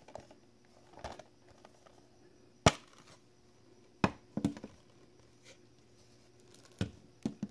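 Sharp clicks and knocks from a metal Blu-ray steelbook case and its clear plastic disc tray being opened and handled, about half a dozen spread apart with quiet between, the loudest a little under three seconds in.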